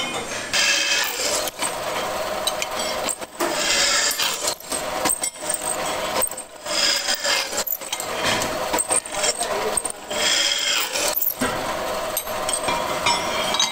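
Bench drill press boring bolt holes through a cast-iron brake disc: the bit grinds and rasps through the metal, the cutting noise broken by several brief pauses.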